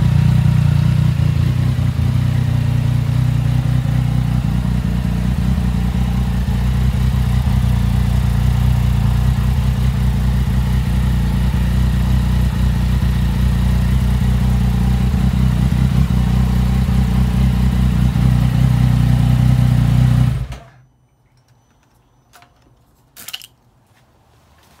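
2019 Yamaha XSR900's 847 cc inline three-cylinder engine idling steadily, then shut off about twenty seconds in, the sound stopping abruptly. A couple of faint clicks follow near the end.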